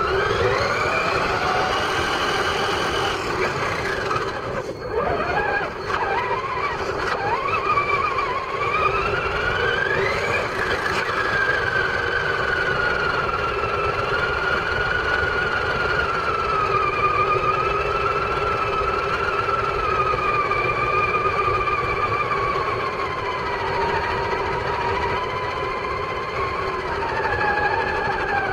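Traxxas Summit radio-controlled monster truck running: a steady electric hum under a motor and gear whine that rises and falls with speed, over the rough noise of tyres on wet gravel.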